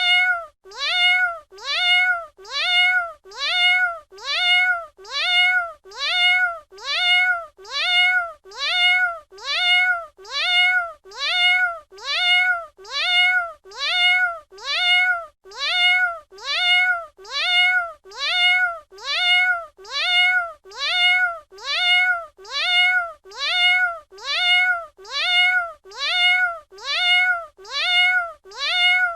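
A domestic cat's meow, one short call rising then falling in pitch, repeated identically over and over at a steady rate of a little over one a second, as a looped sound-effect sample.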